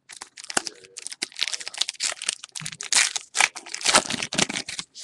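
Foil wrapper of a 2013 Topps Gypsy Queen baseball card pack crinkling and tearing as it is ripped open by hand: a dense run of crackles and rustles.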